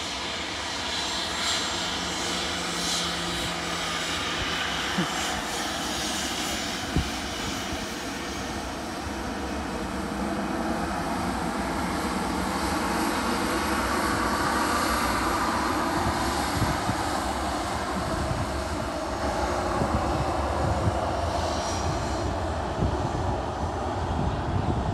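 Jet engines of a Southwest Airlines Boeing 737 running as the airliner moves past on the ground: a steady jet rush with a whine, growing somewhat louder around the middle.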